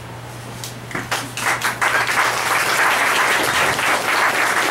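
Audience applause: a few scattered claps about a second in, quickly building into steady clapping from many hands.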